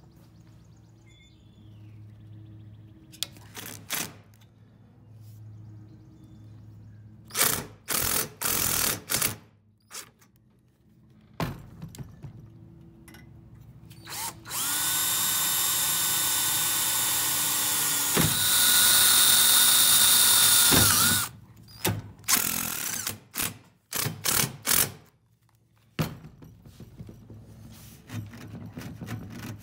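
DeWalt cordless drill drilling through a steel conduit clamp's mounting hole into an aluminium frame. It runs at a steady high whine for about six seconds, catches briefly partway through, then runs on louder. Before and after there are scattered clicks and knocks as parts are handled.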